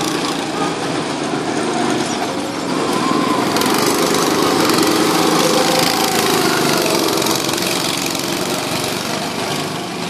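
Small go-kart engines running as karts lap the track; one kart passes close by, louder for a few seconds in the middle, then fades.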